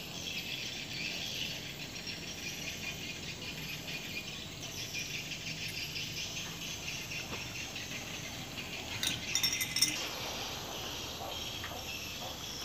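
Steady high-pitched insect chirring, with light metallic clicks and rattles of oil pump parts being fitted by hand to an engine block; a quick run of sharp clicks about three quarters of the way through.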